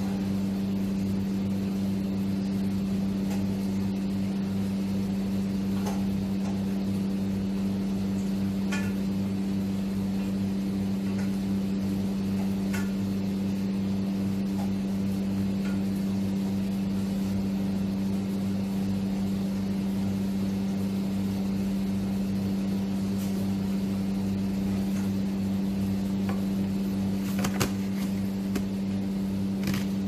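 Steady low electrical hum with a stack of overtones, unchanging throughout, like a running kitchen appliance or fan motor. A few faint light clicks sit over it, the most distinct near the end.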